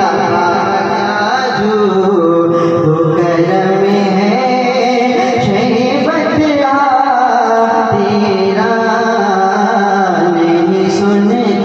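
A man singing a naat, devotional Urdu verse, into a microphone over a public-address system, in long notes that bend and glide.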